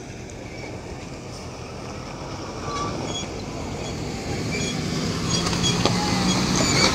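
A truck engine running, growing steadily louder over the last few seconds as it draws near.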